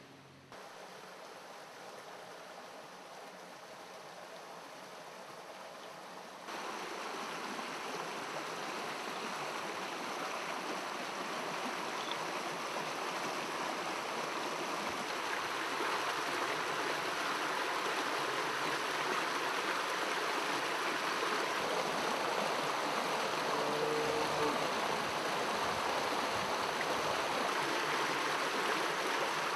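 Shallow rocky river running: a steady rush of water that grows louder, stepping up sharply about six seconds in.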